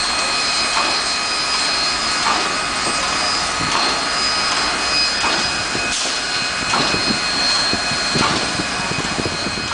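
Southern Pacific 4449, a GS-4 4-8-4 streamlined steam locomotive, standing under steam: a loud, steady hiss of escaping steam, with a regular beat about every one and a half seconds.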